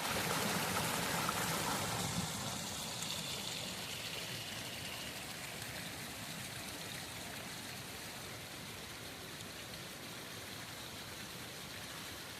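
Steady rush of flowing water, louder for the first two to four seconds, then settling to a lower, even level.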